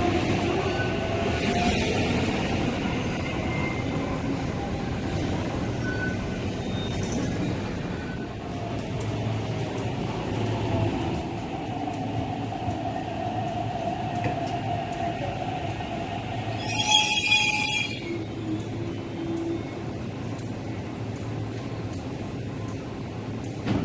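MTR East Rail Line nine-car electric train pulling into a station: a steady rumble with a motor whine that glides in pitch as the train slows, and a brief, loud, high-pitched squeal about three-quarters of the way through as it comes to a stop.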